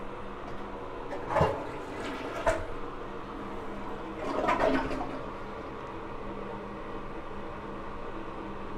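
Steady hum of air conditioning, with two short knocks about a second apart and a brief rush of noise a couple of seconds later.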